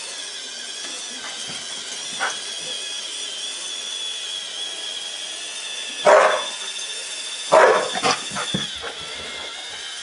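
A Samoyed barks once, then gives a short run of two or three more barks about a second and a half later. Under the barks a Roomba robot vacuum runs with a steady high whine.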